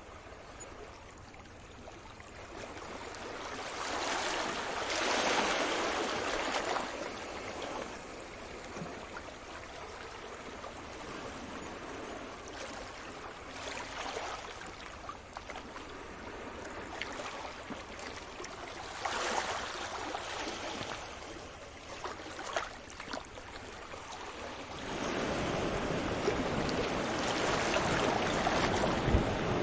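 Sea waves washing in, the rush of water rising and falling in several slow surges. About 25 seconds in it switches abruptly to a louder, steadier roar of surf with a low rumble.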